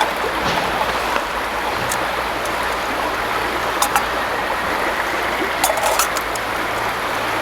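Steady rush of river water, with a few sharp crackles and pops from a small wood campfire.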